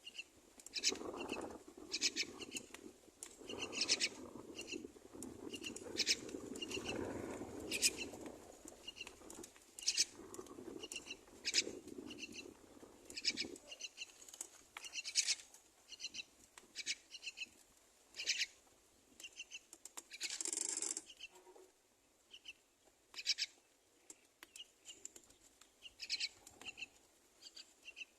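Common myna nestlings begging at the nest: short high calls repeated one or two times a second, with rustling in the nest through the first half and one harsher, longer burst about two-thirds of the way in.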